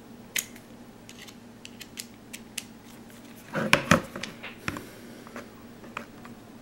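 Scattered small clicks from a screwdriver and its bit cassette being handled, with a brief louder clatter about three and a half seconds in.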